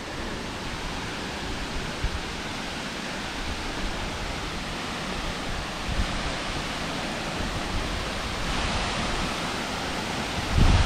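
Henrhyd Falls, a high waterfall, pouring steadily: a dense, even rush of falling water. A brief low rumble comes near the end.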